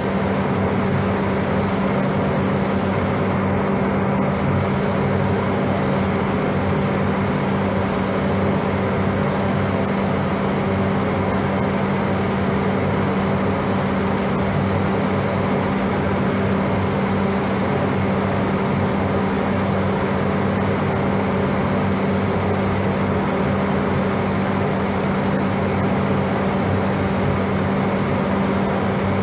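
Paint spray booth's ventilation fans running with a steady hum, under the hiss of a compressed-air spray gun painting a car; the hiss drops out briefly about four seconds in.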